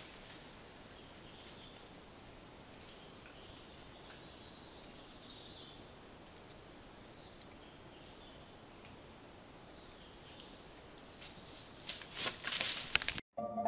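Rainforest ambience: a faint steady hiss with scattered high chirps. Near the end come a couple of seconds of louder crackling rustles in dry leaf litter, as the silky sifaka digs in the forest floor.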